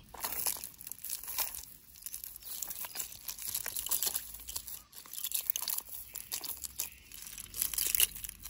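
Cast net being handled on dry ground: irregular rustling and crinkling with small clicks as the mesh, its chain weights and the snail shells caught in it shift and scrape.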